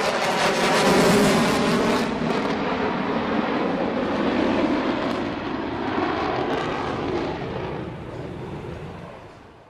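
F-22 Raptor's twin F119 turbofan jet engines heard from the ground as the fighter maneuvers overhead: loud jet noise with a sweeping, whooshing quality. It is loudest about a second in and fades away over the last couple of seconds.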